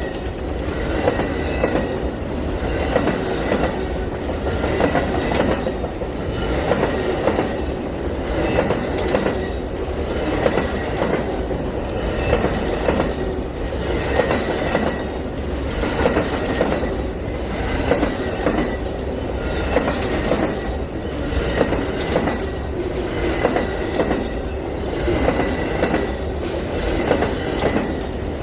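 Long Amtrak Auto Train rolling past, its cars' wheels clicking over the rail joints in a steady, regular rhythm over a continuous rumble.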